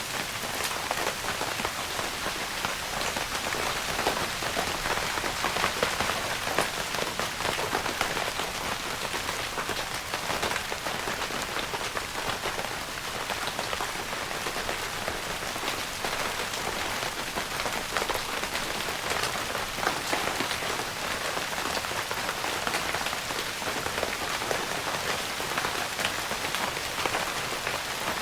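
Steady rain pattering on a tent's fabric roof, a dense even hiss of many small drop taps.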